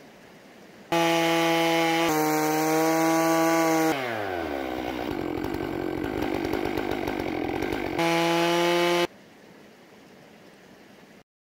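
Chainsaw mounted on a Logosol F2 chainsaw mill starts suddenly at high revs. About four seconds in its pitch drops sharply and it runs rough and loaded for about four seconds, cutting a board off the log. It then rises back to a steady high pitch and cuts off abruptly.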